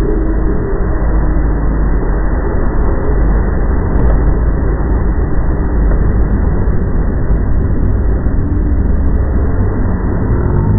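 The reported 'strange sound in the sky': a loud, steady low rumble with a faint wavering moan over it, near the start and again in the second half.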